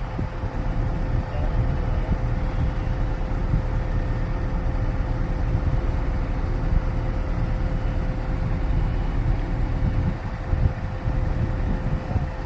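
Heavy diesel engine running steadily: a low rumble with a constant hum on top.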